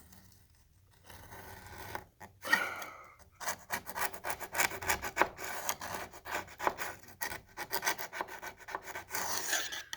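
A one-inch putty knife scraping failed shellac off old stained wood trim. After about a second of quiet it starts, then becomes rapid short strokes, several a second, as the bumpy, deteriorated shellac is peeled away.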